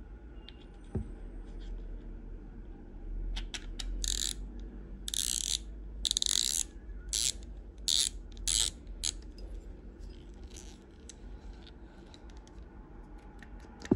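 The front drag knob of a Shimano Twin Power 4000 FC spinning reel being screwed onto the spool, its drag clicker ratcheting. There is a series of short, rapid bursts of clicking in the middle, then a few lighter clicks.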